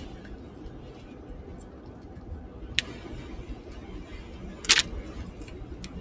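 A plastic candy bag crinkles briefly near five seconds in, with a single sharp click a couple of seconds earlier, over a low steady rumble inside a car cabin.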